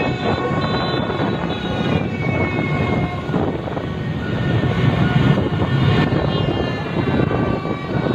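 Dense motorbike traffic running along a street, with horns honking over it at several pitches, some held for about a second.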